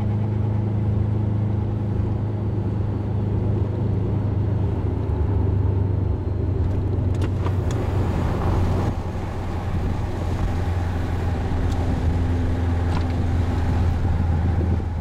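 Subaru EJ20 flat-four engine breathing through a fully de-catted exhaust with a Fujitsubo back box, droning steadily at cruising speed as heard from inside the car. About halfway through, a brighter rushing noise of wind and road joins the drone.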